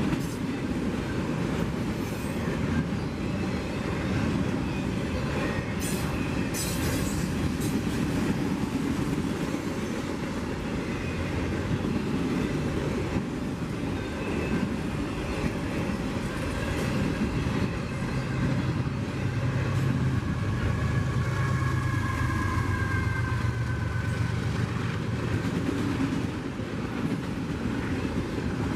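CSX freight train's autorack cars passing close by: a steady rumble and clatter of steel wheels on the rail, with a few sharp clanks early on and a faint high wheel squeal in the latter half.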